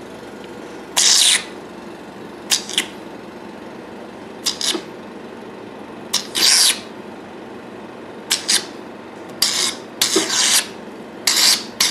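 Vacuum suction handpiece of a hydrodermabrasion machine, with a diamond microdermabrasion tip, working over facial skin: about a dozen short, irregular sucking hisses as it draws water and air off the skin, over a steady background hiss.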